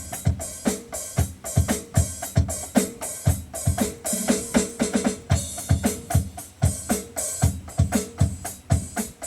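Drum-kit beat of kick drum and snare hits in a steady, repeating pattern.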